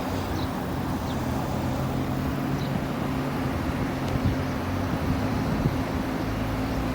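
Outdoor ambience: wind on the microphone over a low steady hum, with a few faint high chirps.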